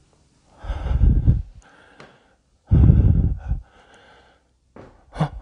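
A man breathing out heavily twice, each breath about a second long and about two seconds apart, with a short voiced catch near the end.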